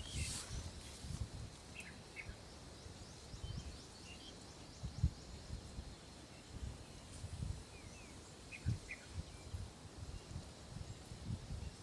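Quiet outdoor ambience with a few short, faint bird chirps and scattered low, dull thumps, the loudest about five seconds in.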